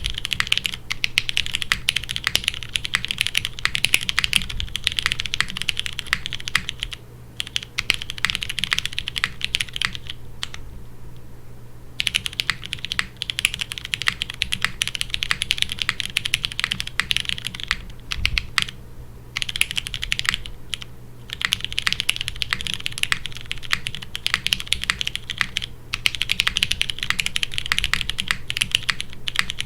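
Typing on a Geon F1-8X V2 mechanical keyboard with lubed Cherry MX Brown Hyperglide tactile switches in a gasket-mounted aluminium plate, under GMK keycaps: fast, continuous keystroke clacks broken by brief pauses, the longest about ten to twelve seconds in.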